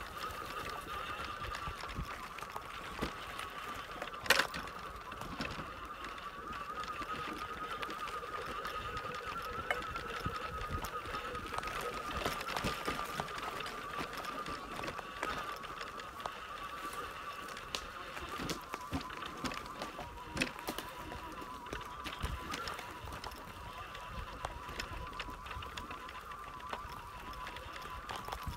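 A wheelchair trike running along a sandy, gritty track with bumps. It gives a steady whine that wavers a little in pitch, with scattered knocks and rattles over the bumps, the sharpest about four seconds in.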